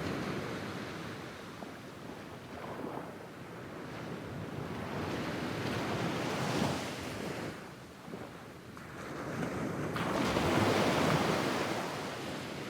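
Medium-sized sea waves washing in on a sandy beach in a regular rhythm, the hiss of the surf swelling and ebbing with each wave. The loudest surge comes in near the end.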